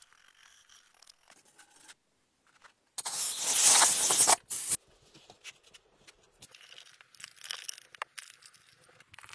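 A soft brush scratches parting powder over a mould pattern. About three seconds in comes a loud rushing noise lasting about a second and a half that cuts off suddenly, then a short second burst. After that, moulding sand gives scattered small crunches.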